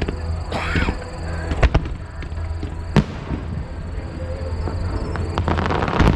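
Aerial fireworks bursting: a few sharp booms, with a spell of crackling that builds into a loud boom at the end, over background music.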